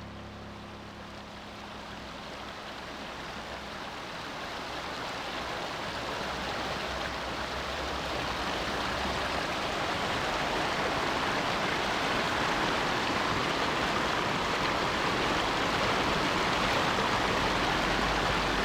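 River water flowing in a steady rush, growing gradually louder.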